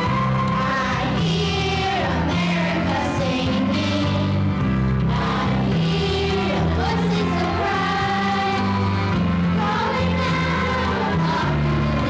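A group of children singing together, with an instrumental accompaniment holding steady bass notes that change about once a second.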